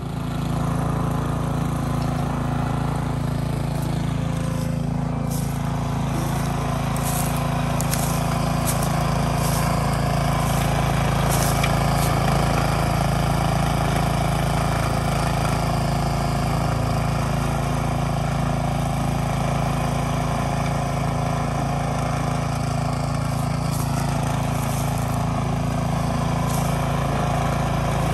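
Small engine of a garden tractor running steadily while ploughing the garden soil.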